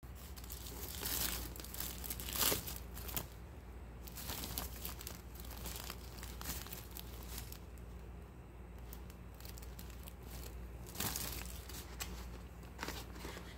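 Plastic wrap crinkling and rustling in irregular bursts as it is handled and pulled off a plastic takeaway bowl, loudest about two and a half seconds in and again about eleven seconds in.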